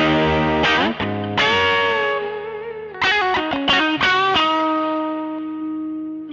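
Fender Telecaster played through a 1966 Fender Vibrolux Reverb pushed into overdrive, with no pedals on: a short phrase of chords and single notes with a bend about one and a half seconds in. It ends on a held chord that rings and is cut off near the end. The breakup comes from the amp's own power-tube saturation, drawn out with an attenuator.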